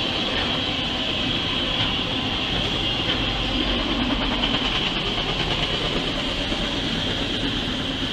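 Freight train's autorack cars rolling past on the rails as the end of the train goes by. There is a steady rumble with a steady high-pitched tone over it.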